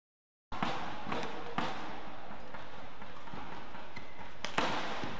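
Shuttlecock struck sharply by badminton rackets several times in a doubles rally, over the steady noise of an arena crowd. The sound cuts in abruptly about half a second in.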